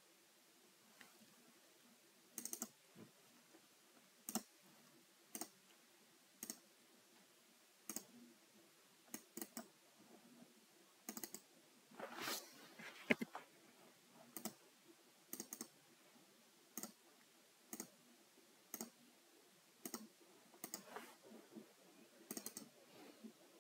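Faint computer mouse button clicks: single clicks and quick double clicks at irregular intervals, about one a second.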